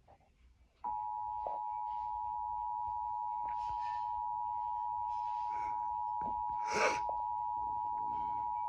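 Emergency Alert System attention signal: the steady two-tone 853 and 960 Hz alert tone, starting about a second in and held for about eight seconds, announcing an EAS required monthly test. A brief noisy burst cuts across it about seven seconds in.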